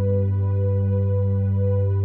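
Ambient background music: a steady held synthesizer chord over a low sustained drone.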